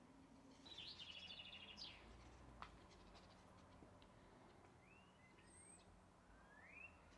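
Faint bird calls over near silence: a quick run of high chattering notes about a second in, then several short rising whistles near the end. A faint steady low hum lies underneath, with a single soft click in between.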